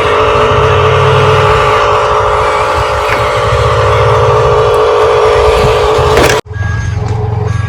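Radio-controlled construction vehicle running, a steady whine over a low pulsing engine-like rumble. About six seconds in it cuts off abruptly and short repeated reversing beeps begin.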